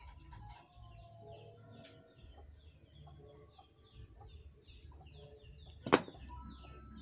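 Birds chirping and clucking, many short repeated calls, with one sharp knock about six seconds in.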